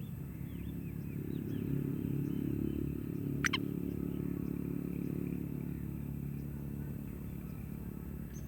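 A motor engine, likely a motorcycle, running steadily in the background, growing louder for a couple of seconds and then easing off. About three and a half seconds in, a single brief sharp bird call sweeps down in pitch, and a few faint chirps come in the first second or so.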